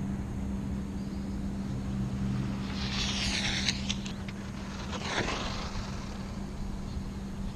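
Electric RC cars passing close by: high-pitched motor whine that swells and bends in pitch about three seconds in, and again sharply about five seconds in, over a steady low hum.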